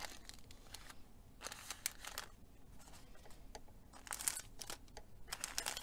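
Paper gift bags and envelopes rustling and crinkling in several short bursts as they are handled and slid about.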